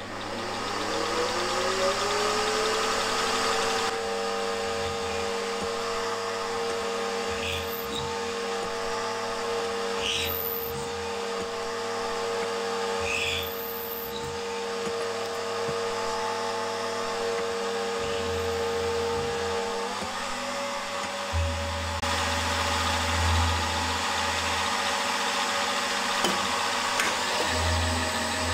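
Milling machine spindle motor spinning up with a rising whine, then running steadily while a 6 mm four-flute end mill cuts a slot in a 6082-T6 aluminium conrod. The whine steps up in pitch about twenty seconds in.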